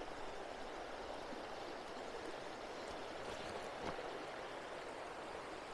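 Shallow, low-water river running over cobbles and stones: a steady, faint rush of flowing water.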